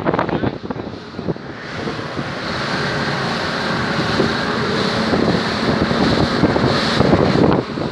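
Wind buffeting the microphone on a motorboat under way, with water rushing past the hull and a steady engine drone underneath. It is gusty and choppy for the first second or so, then settles into a steadier rush.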